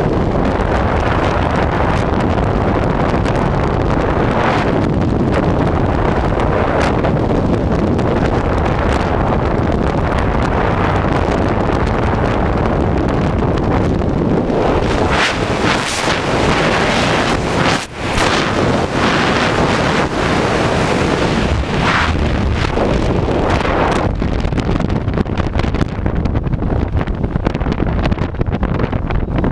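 Loud, steady wind rush buffeting a helmet-mounted camera's microphone during a skydive. It dips briefly about two-thirds of the way in, and the highest hiss thins out near the end.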